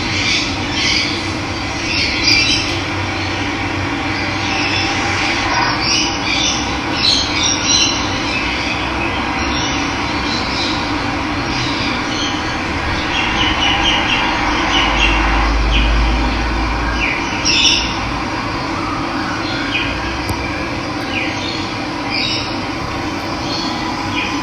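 Steady rush of running water with birds calling and squawking on and off above it.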